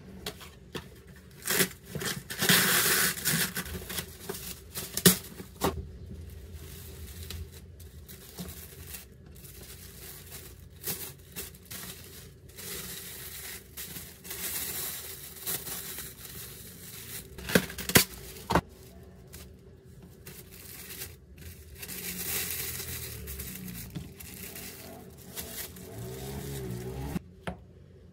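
Thin plastic wrap crinkling and rustling in spells as it is handled and wrapped by hand, with scattered sharp taps and knocks against a wooden cutting board.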